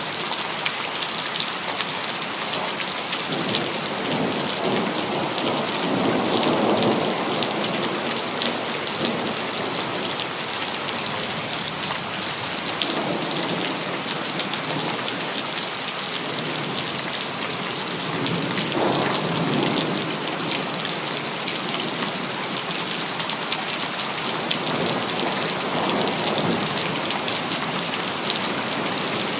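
Steady rain falling on hard surfaces, with thunder rolling in low rumbles four times: a long roll a few seconds in, two shorter ones around the middle, and another near the end.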